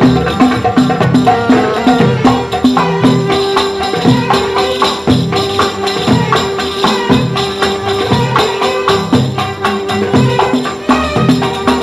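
Instrumental passage of a Khaleeji (Gulf) song: a violin section holding long notes over hand drums keeping a steady beat.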